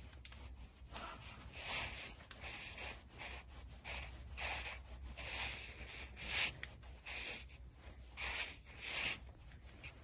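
Hand-tightening a small bolt on a Quad Lock handlebar mount clamp with an Allen key: soft rubbing and rustling strokes, about one a second, as the hand and the padded nylon jacket sleeve move with each turn.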